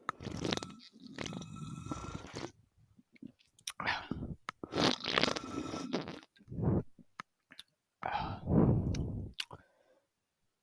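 Close mouth sounds of a person drinking Coca-Cola: a few separate bouts of gulping and swallowing with breaths between them.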